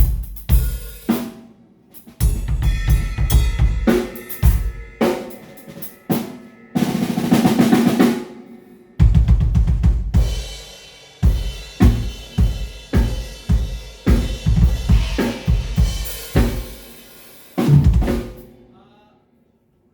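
Drum kit played in fills: bass drum, snare and tom strokes with cymbal crashes, including a quick roll about seven seconds in. It ends on a last crash that rings out and dies away near the end.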